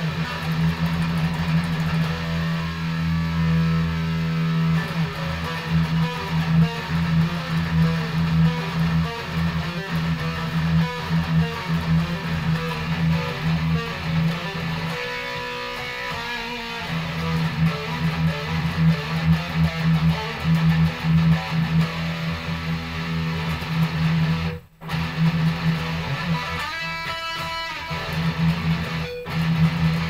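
Electric guitar with an EMG 81 active humbucker through a high-gain metal distortion tone, played as heavy picked riffs on the low strings. It stops dead for a moment about 25 seconds in, then goes into a higher-pitched lick.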